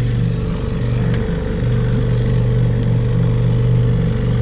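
Small 6-horsepower outboard motor running steadily at trolling speed, an even low hum that wavers briefly about a second in.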